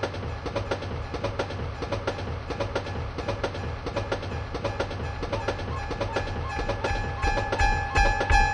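Train running on rails with a rapid, continuous clatter of wheels over the track. A steady tone joins about seven seconds in and grows louder toward the end.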